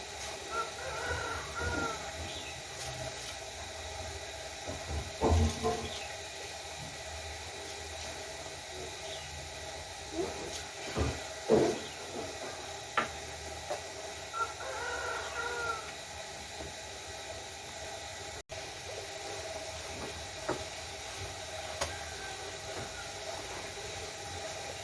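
A rooster crowing twice, once near the start and again about fourteen seconds later, each call lasting about a second and a half. A few loud knocks come around five seconds and eleven seconds in, over a steady background hiss.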